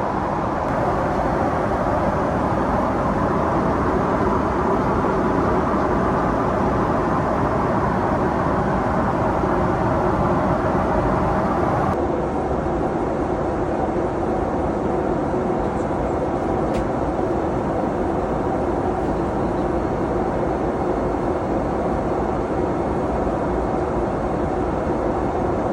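Steady cabin noise of a Boeing 777-300ER airliner: an even rush of engine and airflow noise heard from inside the cabin. Its character changes abruptly about halfway through.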